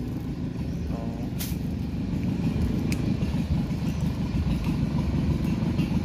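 A boat's motor running steadily close by, a continuous low rumble.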